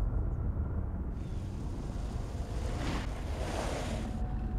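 Steady rushing noise with a low rumble, brightening into a louder hiss from about a second in until about four seconds in.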